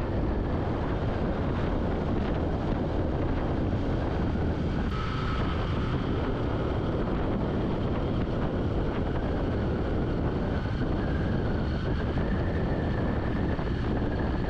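Motorcycle riding along at a steady cruising speed: a continuous engine drone mixed with wind rushing over the microphone.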